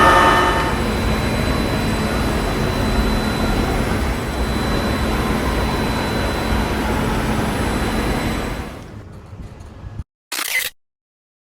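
Miroku MEG-600-1NC NC gun drill running with a steady rushing noise. It dies away near the end, followed by a brief burst and a sudden cut to silence.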